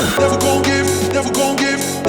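Electronic dance music with a steady beat and held synth notes; a deep bass line comes in just after the start.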